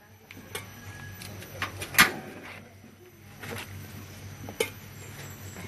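A few sharp metal clanks of a stainless steel pot and steamer being handled on a stove, the loudest about two seconds in.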